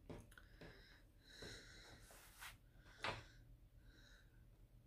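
Near silence: room tone with faint breathing, one breath a little sharper about three seconds in.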